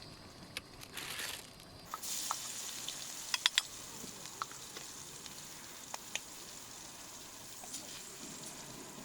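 Beaten egg frying in hot oil for a Thai-style omelette (khai jiao), a steady sizzle that picks up about two seconds in. A quick cluster of sharp clicks comes about three and a half seconds in, with a few single ticks after.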